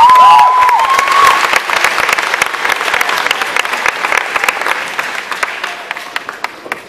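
Audience applauding, with a few pitched cheers in the first second or so. The clapping thins out and fades away near the end.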